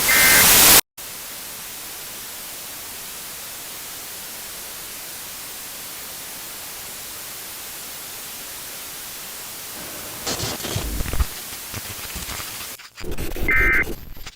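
Steady static hiss, like a dead broadcast channel, opening with a short loud burst of emergency alert data tones and ending with another such burst. A few low rumbling crackles break through the static about ten seconds in.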